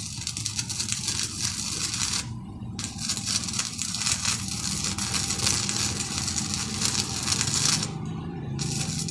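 Electric welding arc from a Powerhouse inverter welder, a dense steady crackle that breaks off twice for about half a second, about two seconds in and near the end, as the arc goes out and is struck again. A low steady hum runs underneath.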